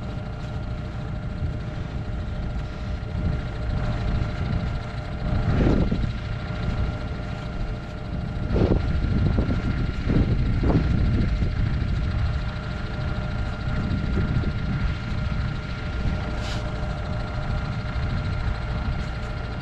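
Tractor engine running steadily with a PTO-driven potato ridge former at work: a low rumble under a steady whine, with a few louder thumps about six to eleven seconds in.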